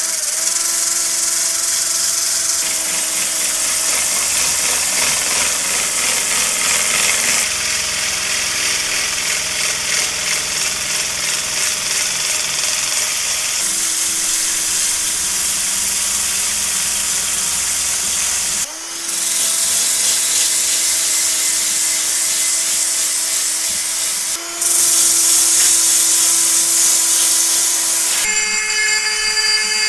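A handheld electric power tool running steadily under load, with a strong high hiss and a steady hum, typical of abrasive rust removal or sanding work on the axe. It comes in several stretches that change abruptly in tone, with a brief dip about two-thirds of the way through.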